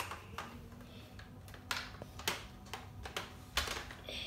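Hard plastic clicks and knocks from a Nerf blaster being handled and taken apart, as its attachments are unclipped to change its configuration. About half a dozen sharp clacks come at irregular intervals.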